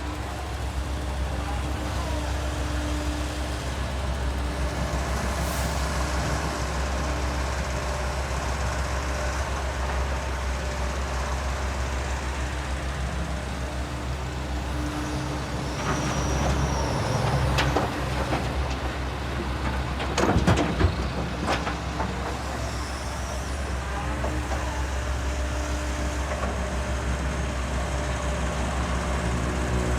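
JCB excavator's diesel engine running steadily as the machine works, with a louder stretch and a few sharp clanks about twenty seconds in.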